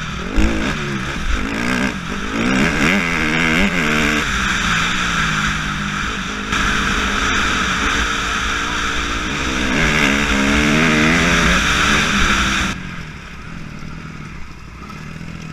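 Honda CRF250R's single-cylinder four-stroke engine, heard from the rider's helmet, revving up and down repeatedly as the bike is ridden, with a steady rush of wind noise over it. The sound drops quieter near the end.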